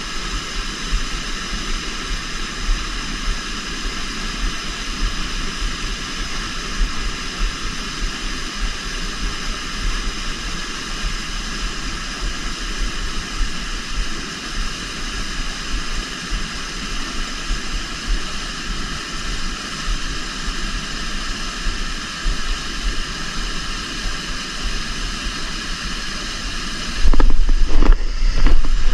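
Steady rush of river water, with low wind rumble on the microphone. Near the end, loud low buffeting or handling noise breaks in.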